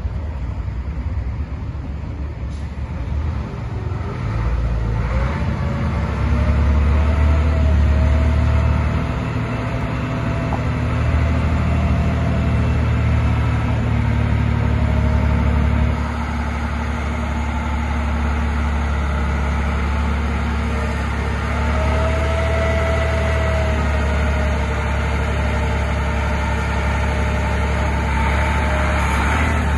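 Heavy Atlet counterbalance forklift's engine running as the truck moves, swelling louder for a few seconds near the start and easing back about halfway through, with a higher whine coming and going.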